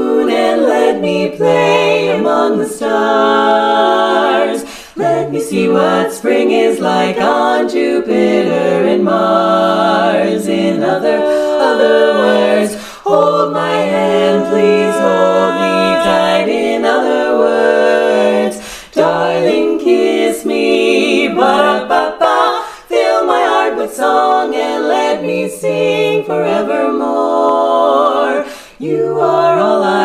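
Women's barbershop quartet singing a cappella in close four-part harmony: sustained chords in long phrases, with brief breaks between phrases.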